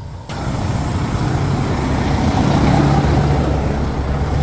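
Diesel engine of a container tractor unit idling close by, a steady low hum that sets in abruptly just after the start.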